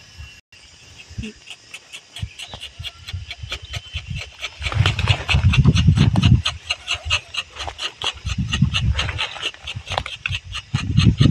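Rubber-tapping knife shaving a thin strip of bark from a rubber tree in scraping strokes, three of them about a second long each, in the middle and near the end. A steady rapid ticking, about four a second, runs underneath.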